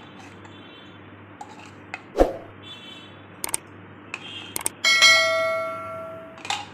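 A few sharp clicks, then about five seconds in a bell ding that rings out for about a second and a half: the sound effect of an on-screen subscribe-button-and-notification-bell animation.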